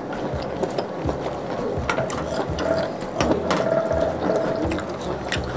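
Noodle slurping, with many quick clicks of chopsticks and a metal spoon against a ceramic bowl.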